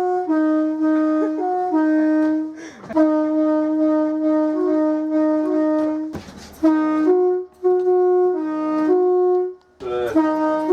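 Train horn played as a tune: a run of notes switching between two tones, with one long held note in the middle and short breaks between phrases.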